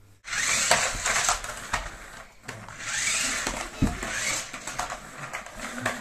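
Toy remote-control flip-side stunt car driving on a laminate floor: its small electric motors whir and its rubber wheels rattle and clatter, with a low thump about four seconds in.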